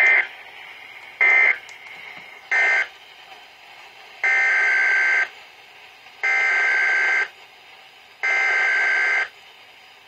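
SAME digital data bursts (Specific Area Message Encoding) played through an Eton weather radio's speaker: three short bursts about a second apart, then three longer bursts of about a second each, about two seconds apart. The short bursts are the end-of-message code closing the previous bulletin; the long ones are the coded header of a new wind-warning alert.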